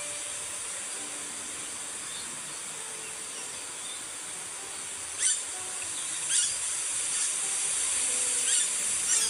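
Steady outdoor hiss, then from about five seconds in, footsteps scuffing on an asphalt path, about one a second.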